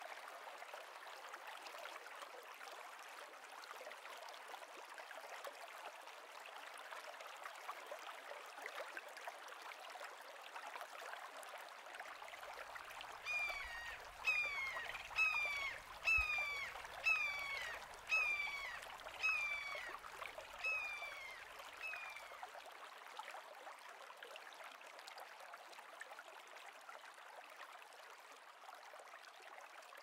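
A steady hiss of flowing water. About halfway through, a bird calls about nine times, one sharp falling note roughly every second, the calls fading toward the end.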